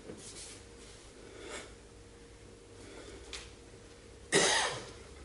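A single loud cough about four seconds in, in a large quiet hall, after a few faint brief sounds.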